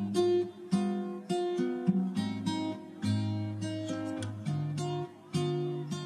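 Background instrumental music: a melody of plucked notes, each starting sharply and fading.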